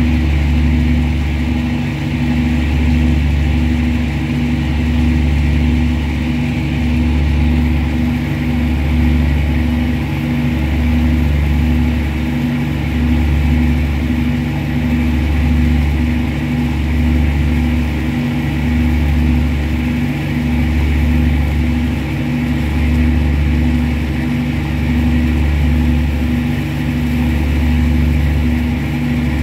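Boat engine running steadily with a deep drone that swells and fades about every two seconds.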